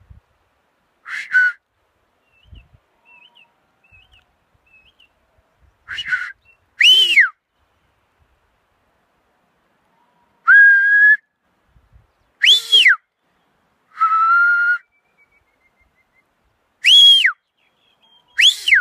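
Shepherd's whistled commands to a working sheepdog: about eight loud, separate blasts a few seconds apart, some swooping up and then dropping sharply, others held on one steady note.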